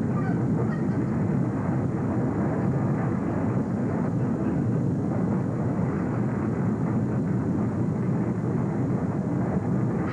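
Nuclear explosion sound effect: a loud, steady low rumble that holds at one level throughout.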